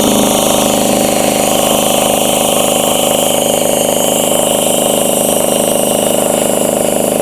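AGT MX-MRW14 mini skid steer's 15 horsepower Rato single-cylinder gas engine running steadily while the hydraulic loader arms are worked up and down.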